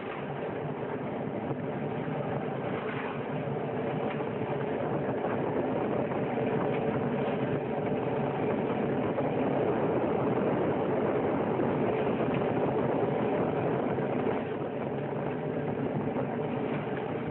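PP/PE plastic film crushing and washing machinery running: a steady industrial machine noise that swells a little and eases off slightly near the end.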